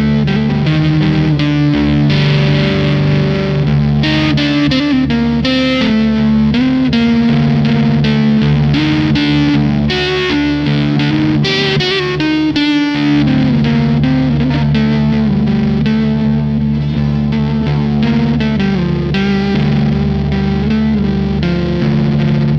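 Electric guitar played through a fuzz pedal: a melodic line of distorted notes over a steady, held low note.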